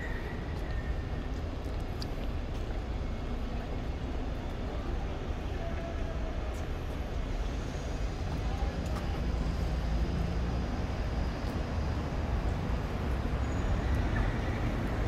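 City street ambience: a steady low rumble of road traffic from passing cars, with faint distant voices now and then.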